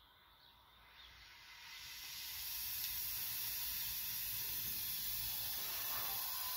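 Oxy-fuel gas torch flame hissing steadily, swelling louder over the first two seconds and then holding even.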